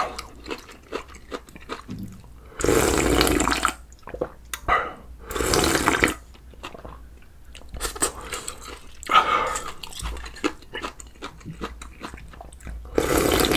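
Close-miked eating: wet chewing and small mouth clicks throughout, broken by four loud slurps of beef tripe soup broth, each about a second long.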